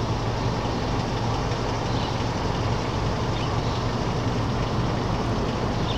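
Steady, unbroken machine noise: a low hum under an even hiss, with no change in level.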